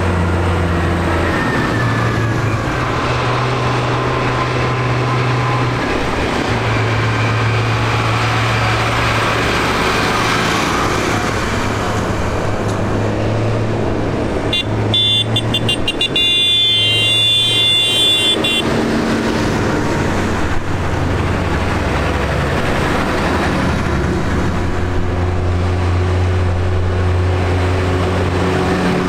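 Diesel engines of farm tractors, a red Case IH and then blue New Holland tractors, running steadily as they drive past one after another, the engine note shifting as each comes and goes. A high pulsing tone sounds for about four seconds midway.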